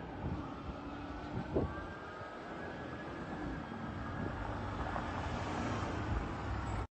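Road traffic rumble with the fire engine's siren fading faintly in the first few seconds, and a brief thump about a second and a half in.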